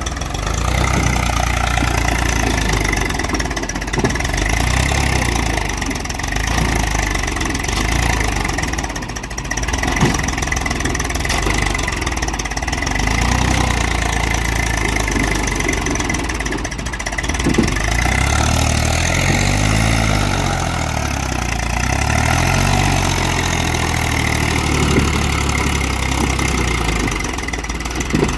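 Eicher 380 tractor's diesel engine labouring under heavy load as it hauls a loaded trailer through deep sand, front wheels lifting. The engine speed rises and falls unsteadily.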